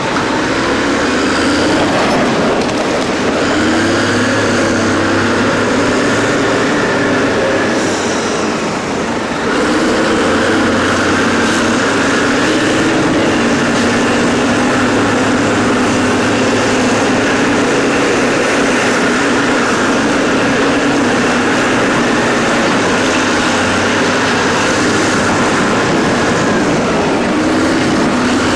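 Heavy diesel engines of a Caterpillar 992C wheel loader and a Cat 777 haul truck running loud and steady. The engine note rises and falls as the loader dumps, reverses and drives its bucket into the rock pile, with a short dip in level about nine seconds in.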